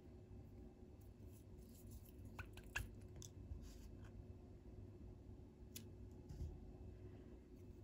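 Faint handling sounds of needle lace work: a few small clicks and rustles of thread and fabric. Near the end comes the snip of small scissors cutting the thread.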